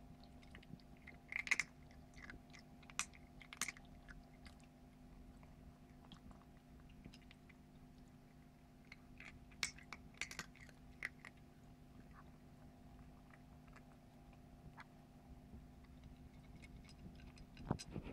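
Bengal kitten chewing dry kibble from a shallow dish: scattered crunches and clicks that come in clusters with quieter gaps between, over a steady low hum.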